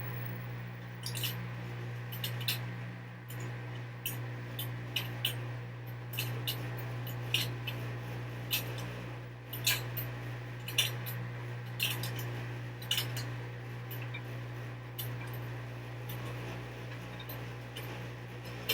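Washing machine running its first rinse: a steady low hum with short, sharp, irregular clicks, about one or two a second, over it.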